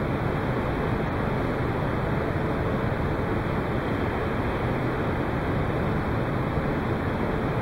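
Steady rushing background noise of an indoor hall, even throughout, with no ball strikes or other distinct sounds.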